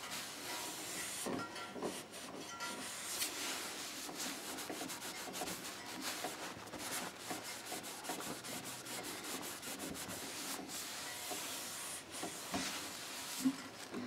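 A cloth rubbing over the finished wooden body of a Seagull S6 acoustic guitar, wiping off fingerprints: a steady, soft rubbing hiss made of many quick strokes.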